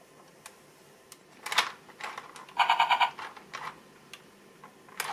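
Electronic sound effects from the Hasbro G.I. Joe Spy Troops Splitfire toy vehicle: a short noisy burst about one and a half seconds in, then a rapid stuttering electronic tone for about half a second, with a few smaller clicks and blips.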